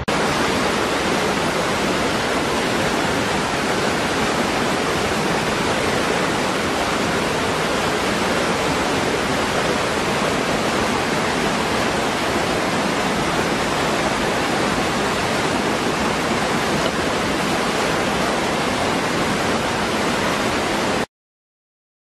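Small waterfall pouring into a rocky pool: a loud, steady rush of falling water that cuts off suddenly about a second before the end.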